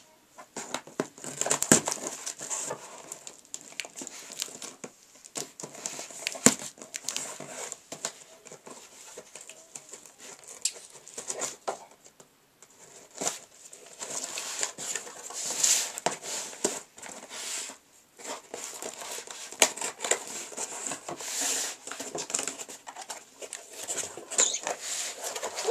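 Scissors scraping and snipping through layers of packing tape on a cardboard box, with irregular cardboard rustling, crinkling and sharp clicks. Near the end the cardboard flaps are pulled open.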